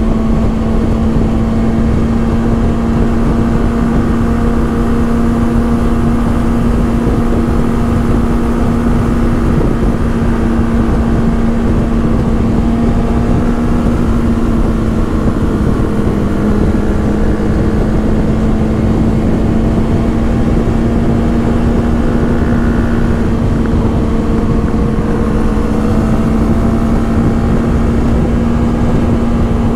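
Motorcycle engine running at a steady speed under way, its pitch holding nearly level, with wind rushing over the microphone underneath.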